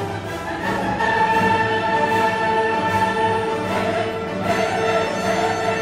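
Orchestral classical background music with long held notes.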